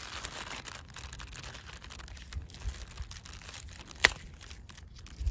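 Hands handling a Brussels sprout stalk: the leaves and tight sprouts rustle and crinkle with many small clicks, and there is one sharp snap about four seconds in.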